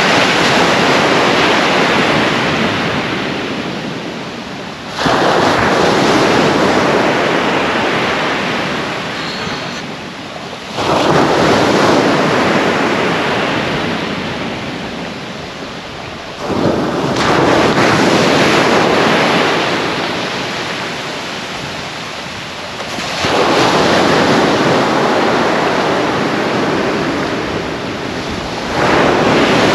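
North Sea waves breaking on a sand beach close by, about every five to six seconds: each one crashes in suddenly, then fades slowly as the wash runs up the sand.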